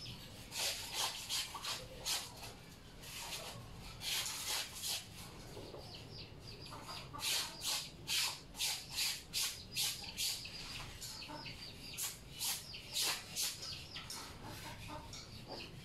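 Clothes being scrubbed by hand in a basin: wet fabric rubbed in quick strokes, about three a second, in several runs with short pauses between.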